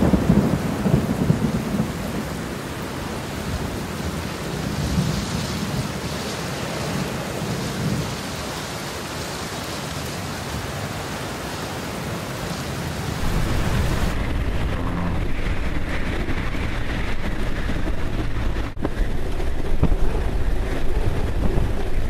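Heavy rain pelting a vehicle's windshield and roof, with wind rumbling against the car, heard from inside the cabin. About two-thirds of the way through the sound shifts to a deeper, steadier wind rumble.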